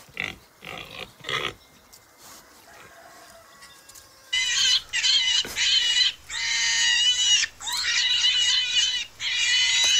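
Pig squealing sound effect dubbed over the catch: three short sounds in the first second and a half, then from about four seconds in a run of loud, high-pitched squeals in long bursts.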